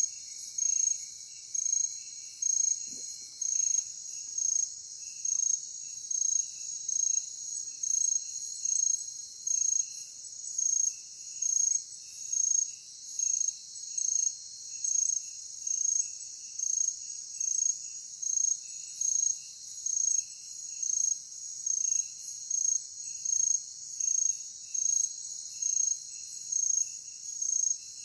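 Night insects, crickets chirping: a loud high chirp repeating about once a second over a steady high buzz of other insects, with softer, irregular chirps lower in pitch.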